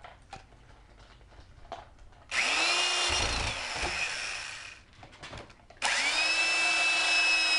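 Corded electric drill run in two bursts into a wooden board: about two seconds in it spins up, runs for about two and a half seconds and winds down, then starts again near the end.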